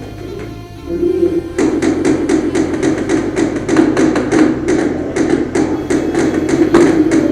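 Rapid airsoft gunshots, sharp cracks about four a second, starting about a second and a half in and running on.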